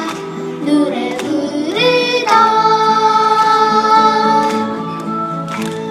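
A Korean children's song sung by a solo voice with instrumental accompaniment, the singer holding one long note through the middle.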